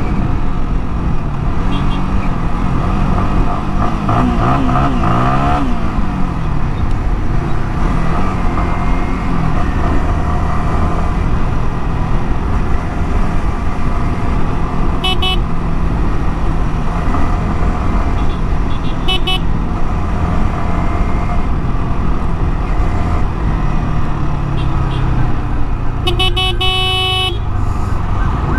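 Yamaha R15 motorcycle's single-cylinder engine running at road speed with steady wind noise, dropping in pitch as the bike slows into traffic. Vehicle horns honk briefly about halfway through and again a few seconds later, and a longer honk sounds near the end.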